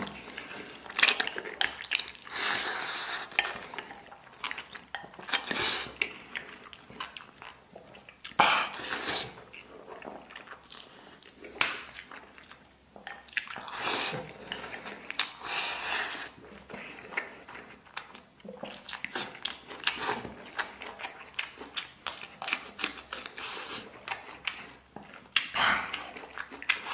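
Wooden chopsticks clicking and scraping against a ceramic rice bowl as rice is shovelled in, mixed with close-up wet eating noises. The sounds come in irregular short bursts.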